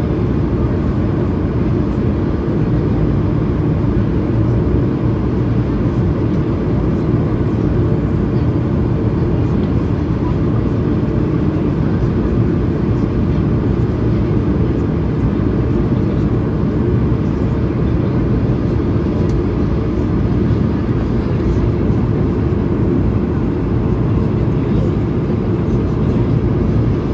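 Steady in-cabin noise of an Airbus A220-300 on final approach, heard from a window seat beside the engine: a low, even rumble of its Pratt & Whitney PW1500G turbofan and the airflow.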